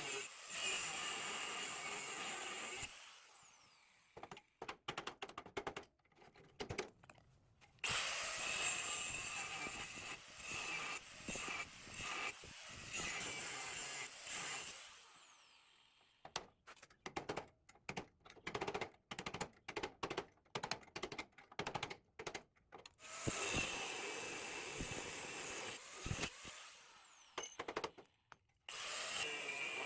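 A handheld power tool runs in several stretches, each starting with a quick rising whine as the motor spins up. In the gaps between runs come quick, irregular clicks and knocks of parts being handled.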